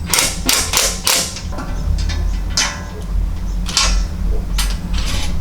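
Irregular metallic clanks and scrapes, about eight in all, as a 4mm steel bash plate is worked into its mounting slots and bolted up under the vehicle, over a steady low hum.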